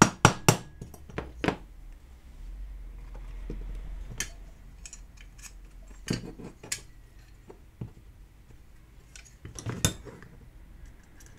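Sharp metallic clicks and clinks of a screwdriver and the diecast metal parts of a toy tipper truck knocking together as the deeply buried tipper axle is worked free. The taps come irregularly: a quick cluster near the start, a few single ones in the middle, and another cluster near the end.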